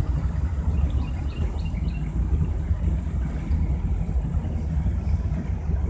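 Small boat's outboard motor running steadily with a low rumble as the boat moves through floodwater.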